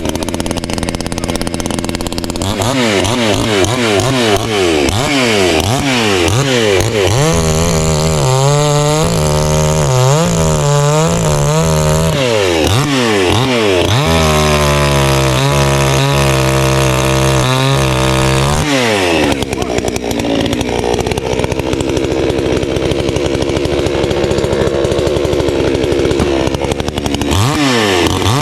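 Garwinner gas chainsaw's two-stroke engine running, revved up and down over and over for the first twenty seconds or so. It then holds a steadier note for several seconds and revs up again near the end.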